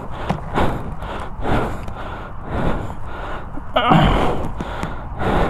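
A man breathing hard and heavily from exertion, a run of loud breaths, with a louder strained grunt about four seconds in.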